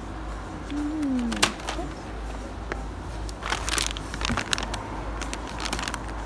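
Clear plastic packaging on shin guards crinkling and rustling in a few short bursts as it is handled, over a steady low hum. A single sharp click comes about a second and a half in.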